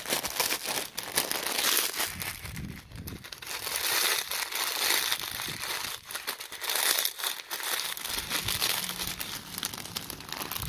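Continuous crinkling and rustling close to the microphone, full of fine clicks and rising and falling irregularly.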